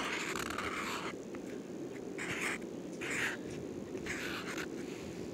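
Felt-tip marker drawing on paper: one long stroke lasting about a second, then three shorter strokes about a second apart.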